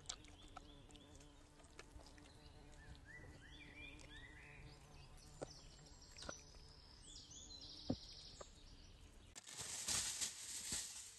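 Small birds chirping in short calls, with a few scattered light clicks. About nine seconds in, a louder rustling noise begins and continues to the end.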